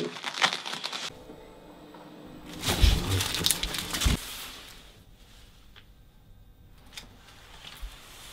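Crinkling and rustling of a small item being handled and passed from hand to hand, loudest for about a second and a half in the middle, with a few small clicks before it.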